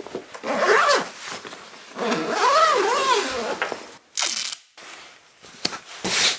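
A gig-bag zip and a roll of paper masking tape being handled: two drawn-out squealing pulls that wobble in pitch, then a short sharp rip about four seconds in, and a few clicks near the end.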